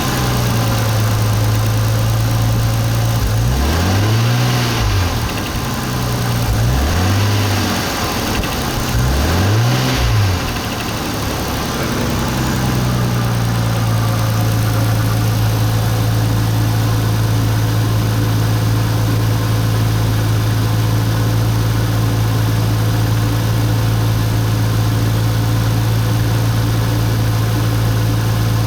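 Nissan RB25DET 2.5-litre turbocharged straight-six idling, revved briefly three times in the first ten seconds and then settling back to a steady idle. The engine has a knock that turned out to come from the turbocharger.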